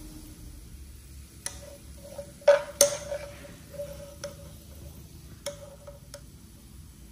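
Metal mesh strainer clinking and scraping against a nonstick frying pan while scooping fried garlic and chili out of the oil. There are several separate light clinks, each with a short ring, and the loudest two come close together about two and a half seconds in.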